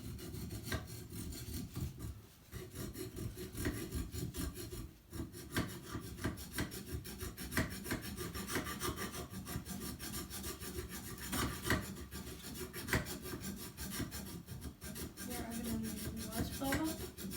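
Small metal file scraping back and forth in short repeated strokes over the metal wall inside a shower faucet's diverter valve, with brief pauses about two and five seconds in. The filing smooths off mineral buildup and corrosion so the diverter's gate and valve can seal flat against the wall again.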